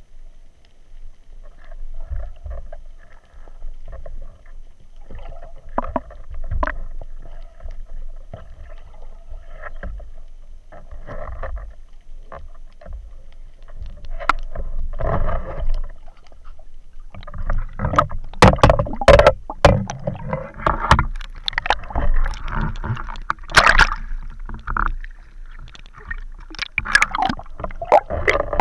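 Water sloshing and splashing around a spearfisher at the surface, heard from underwater, with scattered knocks and bumps against the camera. It grows busier and louder a little past halfway.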